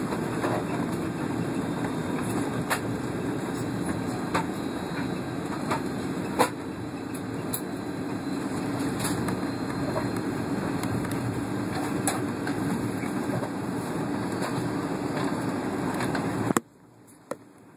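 Cabin noise of a Boeing 757 taxiing: a steady low rumble from the engines and rolling wheels, with occasional clicks and rattles. Near the end the rumble cuts off suddenly, leaving a much quieter background.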